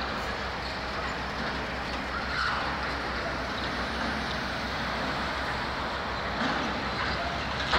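Steady city street traffic noise, with cars and a truck driving past and a low rumble underneath.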